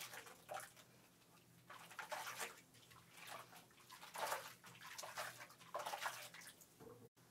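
Water splashing at a hair-salon wash basin in short, irregular bursts, faint.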